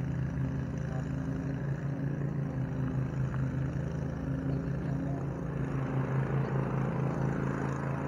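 A steady low mechanical drone like a running engine, with an even hum, holding the same level throughout.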